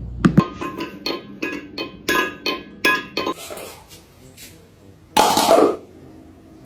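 Light clinking and tapping of dishes, some strikes ringing briefly, about three a second, dying away after three seconds. A louder half-second noisy sound comes a little after five seconds in.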